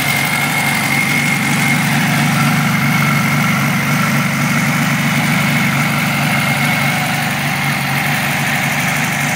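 Air-cooled VW flat-four stroker engine (78 mm stroke, 92 mm bores, single Zenith 32NDIX carburettor) running steadily on a stand during break-in, with a thin steady whine above the engine note.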